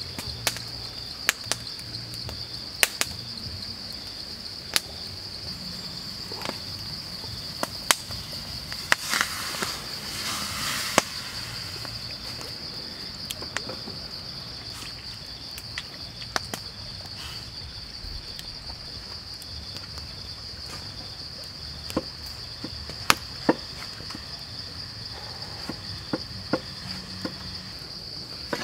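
Insects make a steady, high drone throughout. Scattered over it are sharp knocks of a cleaver chopping on a wooden board, with a brief hiss about nine to eleven seconds in.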